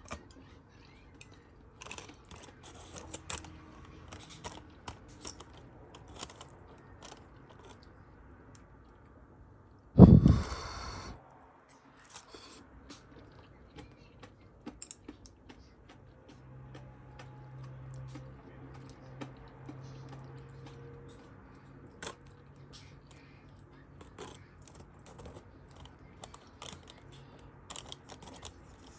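Small scattered clicks and chewing sounds of people eating at a table, with one loud thump about ten seconds in.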